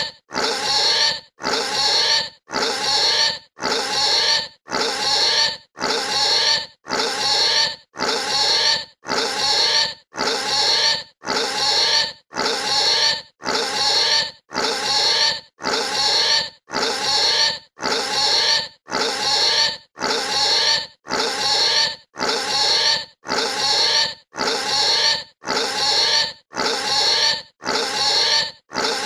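Pig squealing, the same shrill squeal repeated about once a second, each lasting most of a second with a short silence between.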